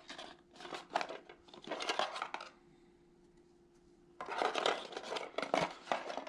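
Drone propellers and their packaging being handled and unpacked: a run of small clicks and rustles, a pause of about a second and a half in the middle, then more rustling and clicking.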